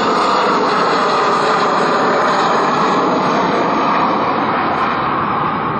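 Twin CFM56 turbofan engines of a United Airlines Boeing 737 at climb power just after takeoff: steady, loud jet noise that eases slightly near the end as the plane turns away.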